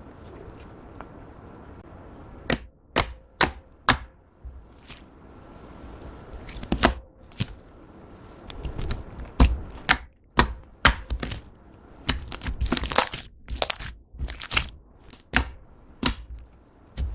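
Clear slime being worked by hand with glitter glue, giving sharp sticky clicks and pops as it is stretched, folded and pressed. A few pops come after about two and a half seconds, and they grow denser and more frequent from about nine seconds on.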